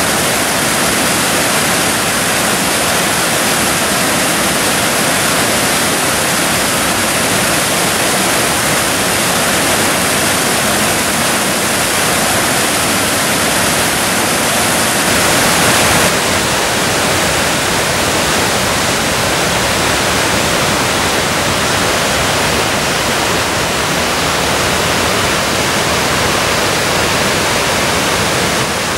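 Waterfall pouring steadily: a loud, dense, even rush of falling water. About halfway through, the highest part of the hiss turns slightly duller.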